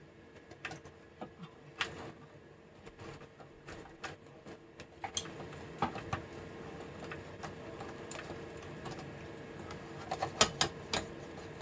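Metal drive cage being worked into a desktop PC case among ribbon cables: scattered clicks and light metal knocks, with a cluster of sharper knocks near the end.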